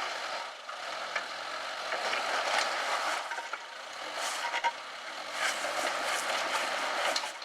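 Suzuki Jimny Sierra crawling slowly over rocks: a faint low engine hum under a steady crunching of tyres and stones, with a few sharp knocks as the underside or wheels hit rock.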